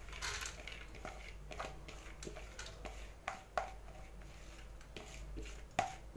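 Soaked toor dal (split pigeon peas) sliding and dropping from a plastic bowl into a metal pressure cooker: a faint patter with a few light clicks, the sharpest about three and a half seconds in and again near the end.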